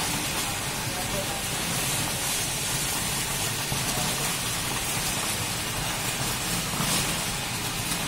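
Muddy water gushing up out of a borewell casing and splashing down over sandbags and gravel: a steady rushing, splashing wash.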